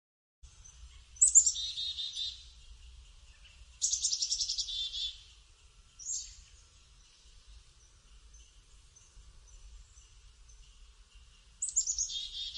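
Black-capped chickadee calling four times, each call a high opening note followed by a quick run of harsher repeated notes: its chick-a-dee-dee call.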